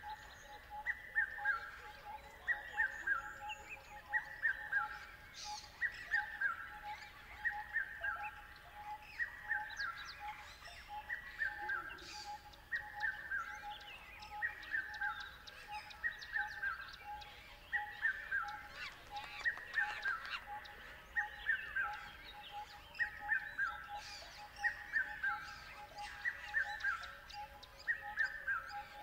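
Birds calling. One repeats a short falling run of notes about every second and a half, over another bird's steady, fast-pulsing call at a lower pitch.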